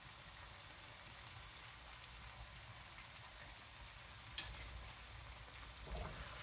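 Faint, steady sizzle of a pan of lemon garlic chicken pasta sauce over low heat, with a single small click about four seconds in.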